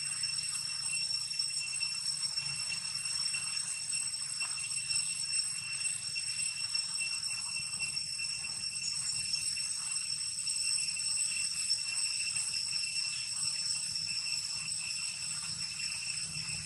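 Insects droning steadily outdoors: one high, even tone with fainter overtones above it, over a faint hiss.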